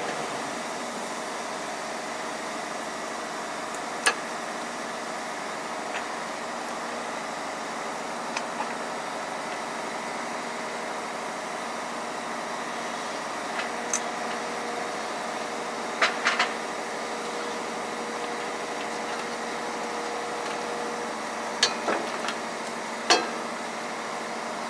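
Sharp metallic clicks and clinks of hand tools and a part being handled under a truck, a few scattered single ones and then small clusters of two or three near the middle and the end, over a steady mechanical hum like an engine idling.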